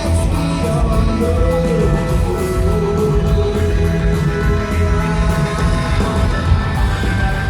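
Loud rock music from a band playing live, with a singing voice over the instruments.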